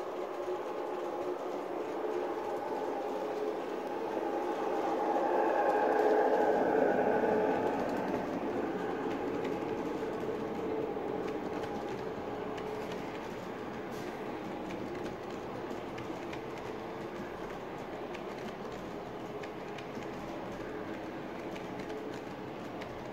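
LGB G-scale model train with tank cars running past on brass track: a steady rolling hum of wheels and drive. It swells for a few seconds about a quarter of the way in, then settles to an even level.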